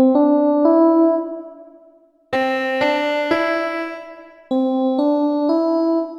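Piano app sounding simple single notes: three groups of three notes, about half a second apart, the first group stepping upward. Each group is left to ring and fade before the next begins.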